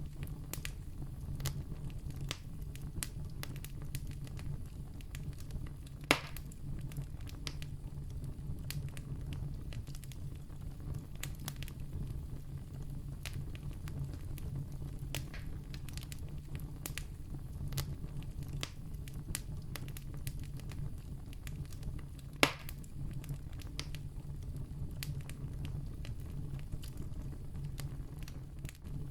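Wood campfire burning: a steady low rush of flames under frequent small crackles, with two sharp, louder pops about six seconds in and again about twenty-two seconds in.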